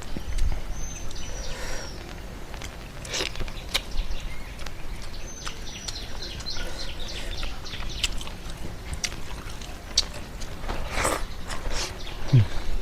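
Mouth sounds of eating: scattered clicks and smacks of chewing. Birds chirp in the background, in short series of high, falling notes about a second in and again from about five to seven seconds.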